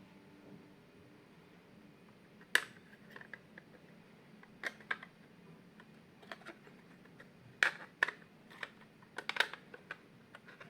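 Small sharp clicks and taps of an SSD being handled and seated in a laptop's drive caddy: a loud click a little over two seconds in, then a few short clusters of clicks spread over the rest of the time.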